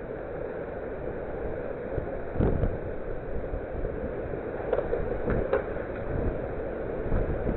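Tornado wind blowing hard over a doorbell camera's microphone as a steady rumbling noise, with several sharp knocks: one about two and a half seconds in and a cluster around five seconds.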